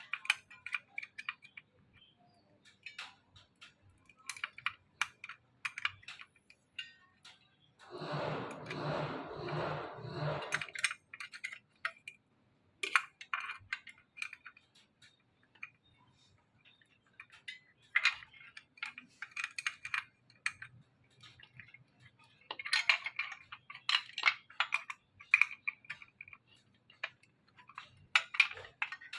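Small metal clicks and clinks of a cordless circular saw and its parts being handled while the cutting blade is fitted, with a louder pulsing rattle lasting about two seconds a third of the way through.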